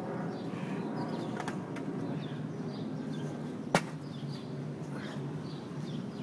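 Steady outdoor background noise, with one sharp knock a little past the middle, as someone handles things right by the phone on the wall.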